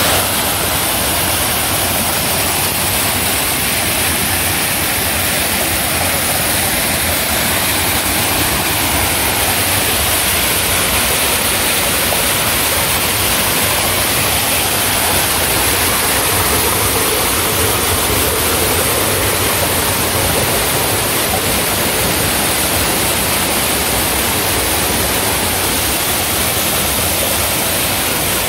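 Several small waterfalls pouring over rock ledges into a shallow pool: a steady, unbroken rush of falling water.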